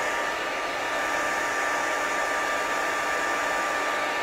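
Handheld hair dryer with a diffuser attachment running steadily, a constant rush of air with a thin steady whine in it, as it diffuse-dries curly hair.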